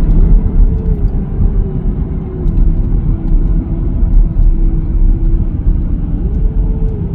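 Car driving, heard from inside: a steady low road and engine rumble, with the engine note rising briefly near the start and again about six seconds in, then easing down.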